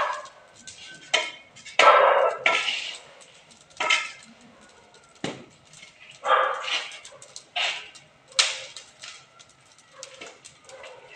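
A dog barking again and again, single barks a second or two apart, with a sharp click about five seconds in.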